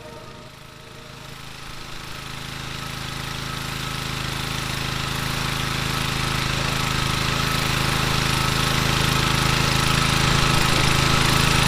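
Small four-stroke petrol engine of a ToolPro 2.6 hp pressure washer running at a steady speed with a hiss above it, growing steadily louder.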